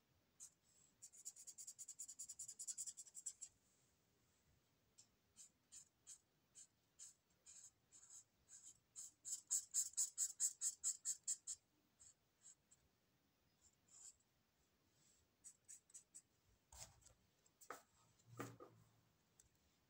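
Pen strokes scratching on paper, back and forth as in hatching: a fast run of about ten strokes a second from about a second in, then sparser single strokes, then another fast, louder run around the middle. Near the end come a few dull knocks and rubbing as the paper or camera is handled.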